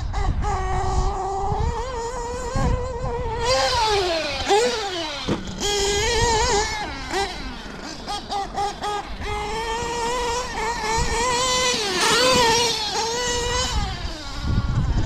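High-pitched whine of a nitro RC truggy's Novarossi .28 two-stroke engine, revving up and easing off as the truck is driven. Its pitch falls away a few seconds in, and there are quick on-off throttle blips around the middle.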